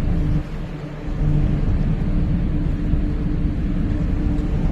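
Docked car ferry's engines and machinery running, a steady low hum under an uneven low rumble, which dips briefly about half a second in.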